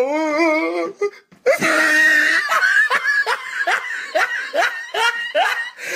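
High-pitched laughter: a wavering voice for the first second, then after a brief break a long laugh with quick ha-ha strokes, about three a second.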